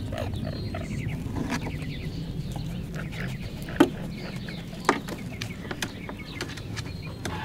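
Faint high squeaky calls from striped skunk kits over a low steady rumble, with two sharp clicks near the middle.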